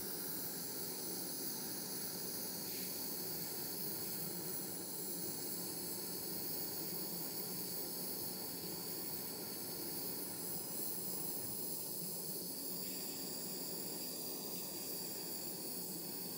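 Handheld butane torch burning with a steady hiss, its blue flame melting solder in a spoon.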